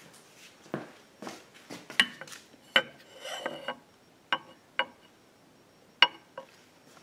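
Hand work on a portable generator: a series of sharp metallic clicks and clinks of tools and parts being handled, with a short rattle about three seconds in.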